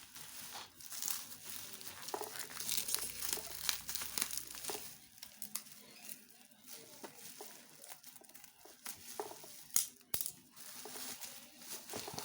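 Packaging crinkling and rustling as it is handled and opened, with scattered small clicks and two sharp clicks about ten seconds in.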